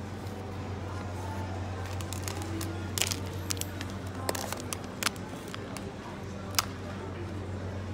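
Shop ambience: a steady low hum with faint background voices and music, and a few sharp clicks and taps between about three and seven seconds in.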